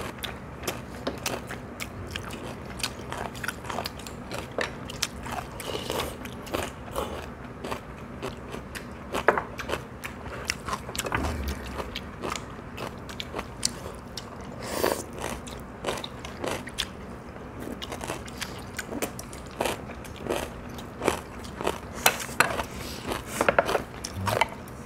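People eating at a table: chewing and crunching, with irregular clicks and clinks of spoons and chopsticks against bowls and dishes.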